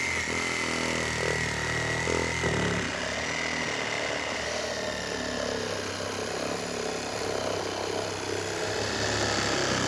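Cordless reciprocating saw running steadily as its blade cuts a round hole through the wooden roof decking and its underlayment.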